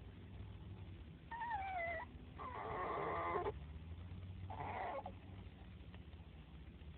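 Dog making three duck-like vocalizations. The first is a wavering whine that drops in pitch. The second is a louder, longer, raspy call, and the third is a shorter one.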